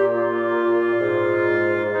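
Background music of slow, held chords, which change to new notes about a second in.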